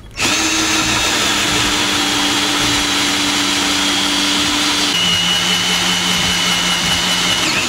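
Cordless drill spinning a hole saw that cuts a miter into the end of a bamboo tube held in a tube-mitering fixture. It runs steadily, and the motor note shifts slightly lower about five seconds in.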